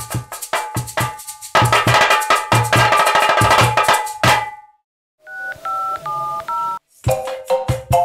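Cajón, shakers and marimba playing a Brazilian-style percussion groove that builds to a dense roll and stops about four and a half seconds in. After a brief gap comes a short stepped melody of electronic iPhone ringtone tones, and near the end the marimba and hand percussion start a new groove.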